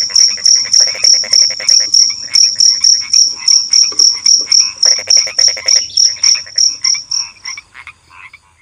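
Cricket chirping in a steady rhythm, about four high chirps a second, over frogs calling in rapid pulsed trills lasting about a second each. Both fade out near the end.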